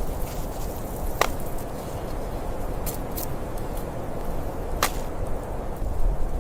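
A steady rushing noise with four sharp snaps or cracks: one about a second in, two close together around the middle, and one near the end.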